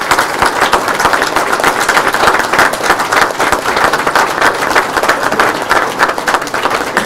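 A large audience applauding: dense, even clapping.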